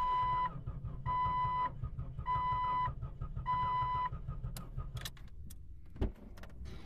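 Jeep Cherokee's dashboard warning chime, a clear beep sounding four times about once a second, then stopping, over a steady low rumble. Light clicks follow, and a single thump near the end.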